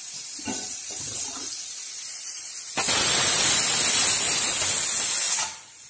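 Pressure cooker whistling: about three seconds in, a loud burst of steam hisses out through the weight valve for nearly three seconds and then cuts off abruptly, after a fainter steady steam hiss.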